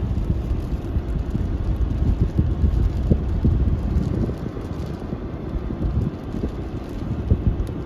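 Strong snowstorm wind buffeting the microphone: a loud, gusting low rumble.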